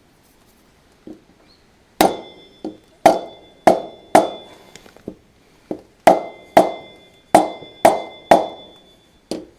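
About a dozen sharp taps from a plastic-faced hammer, starting about two seconds in at roughly two a second, each leaving a short metallic ring: the front wheel hub with its new bearings being driven onto the axle spindle.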